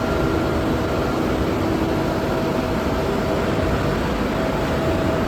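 Straw shredding line running: a steady, dense machine noise with a faint hum underneath.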